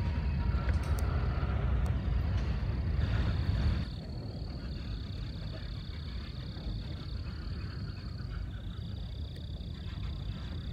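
Freight train cars rolling past with a steady low rumble, which drops to a quieter level after a sudden change about four seconds in. Steady high-pitched tones sound over it, starting and stopping for a few seconds at a time.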